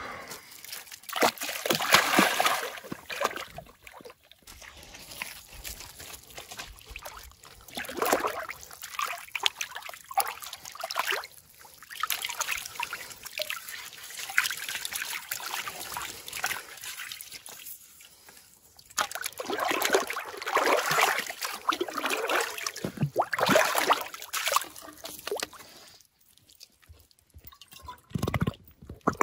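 Lake water splashing and sloshing in irregular surges, with quieter gaps between them, as something moves through the shallows.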